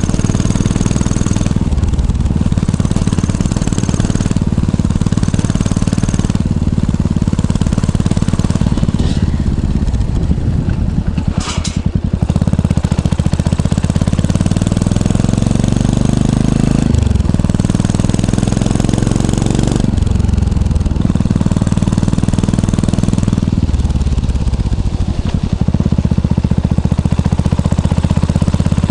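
Yamaha SR400 single-cylinder four-stroke engine's exhaust note, running steadily. About halfway through, the revs climb and fall back suddenly, then climb and drop once more.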